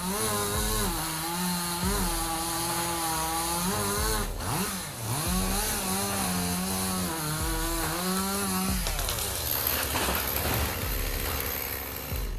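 Chainsaw running at high revs, its pitch dipping and recovering several times as it loads up in the cut. About nine seconds in, the engine note drops away and a rough noise remains.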